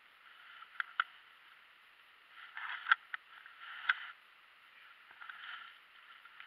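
Rustling and handling noise in short bursts, with a few sharp clicks, while a hooked bluegill is lifted out on the line and grabbed by hand.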